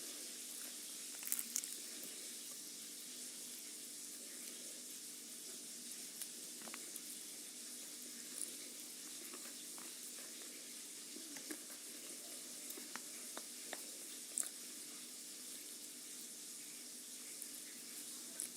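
Food frying in a pan: a faint, steady sizzle with scattered small pops and clicks.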